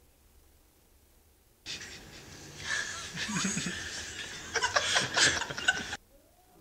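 Near silence for under two seconds, then a group of people giggling under their breath and breathing, with scattered small clicks and shuffles, for about four seconds before cutting off abruptly.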